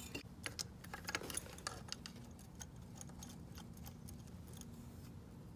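Light, irregular clicks and taps of a hand tool on metal as a bicycle's chain guide is unbolted, most of them in the first couple of seconds, over a faint steady hum.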